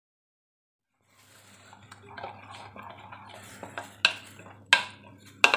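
A metal utensil stirring a thick spice marinade paste in a ceramic bowl. Starting about a second in, it scrapes and clinks against the bowl, with three sharp clinks in the last second and a half.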